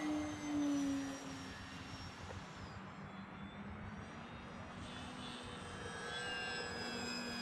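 Multiplex Acromaster Pro RC plane's electric motor and propeller whining in flight, loudest about half a second in as its pitch slides down, then a quieter steady hum as it flies off.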